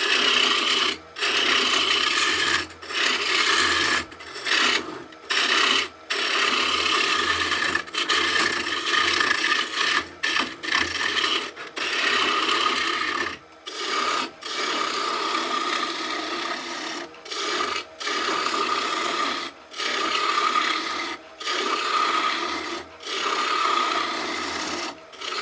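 Gouge cutting a spinning cherry blank on a wood lathe: a continuous rasping shaving noise, broken by short breaks every second or two as the tool comes off the wood between passes.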